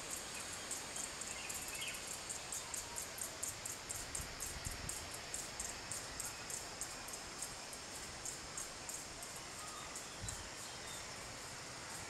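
Insect chirping in a steady train of short, high-pitched pulses, about four a second, over a soft outdoor hiss.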